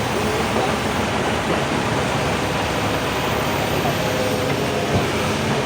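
Excavator running at a mine site: a steady, dense engine and machinery noise with no pauses.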